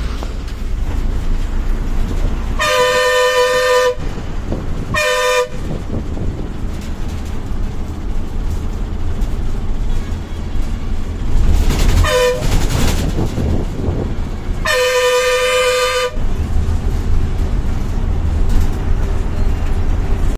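Vehicle horn honking four times over a steady engine and road rumble: two long blasts of about a second each, with a short toot and a brief tap between them.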